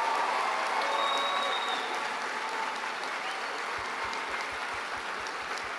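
A large concert audience applauding steadily after a choir piece, with a run of low thumps in the last two seconds.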